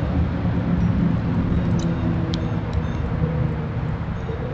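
Steady low rumble of a motor vehicle engine, with a few short high-pitched bird chirps over it.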